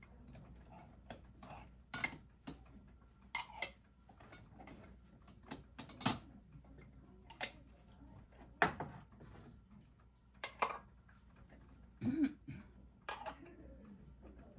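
Crockery and cutlery being handled: about ten short clinks and knocks at irregular intervals, as cups, plates and spoons are set down and moved about.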